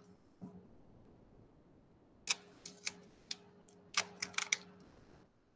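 Plastic drinking straws clicking and rattling against each other as a handful is gathered into a bundle of ten and wrapped with a rubber band. There are a few sharp clicks about two seconds in and a quick cluster of them around four seconds in.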